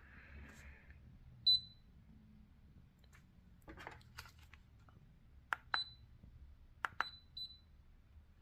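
Leica Disto D510 laser distance meter being tested after a keypad replacement: sharp button clicks, each followed by a short, high beep from the meter. Four beeps in all, the last two close together. The new keypad responds to its presses.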